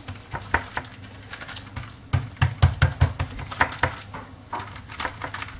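Hand patting and pressing a soft, crumbly cheese-and-egg dough flat on a parchment-lined baking tray: irregular soft pats and taps, with a run of heavier thumps about two seconds in.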